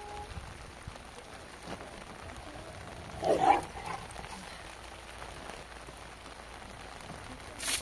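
Steady rain falling on a plastic-sheet roof. About three seconds in a dog barks briefly, the loudest sound, and near the end a straw broom gives one short swish across the wet plastic.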